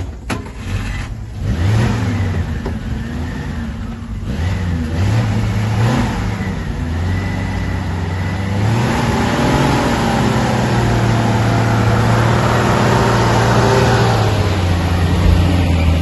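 A car engine running, revving up and down, then growing louder and steadier from about halfway through as the vehicle comes close.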